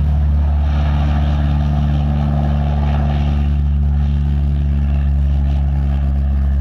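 Steady low engine drone, loud and unchanging throughout.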